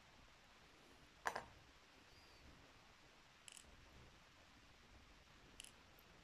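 Near silence broken by a few small, sharp clicks of tweezers and tiny brass lock pins being set down on a wooden board while a lock's key pins are removed from its plug. The loudest click comes about a second in, with three fainter ones later.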